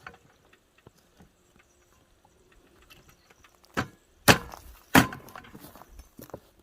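Sharp cracks: one just before four seconds in, two louder ones close together just after it, and a smaller one a little later, with faint clicks between.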